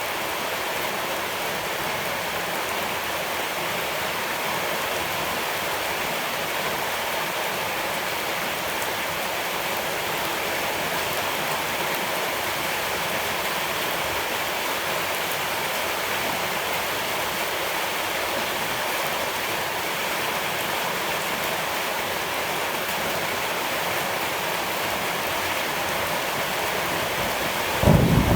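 Steady rushing of flowing water, even and unbroken. A brief low thump just before the end.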